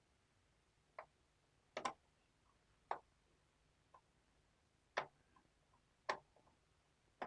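Light, sharp clicks and taps about once a second, seven in all with a quick double near two seconds in, from a screwdriver and small screws being worked out of a laptop's plastic bottom cover.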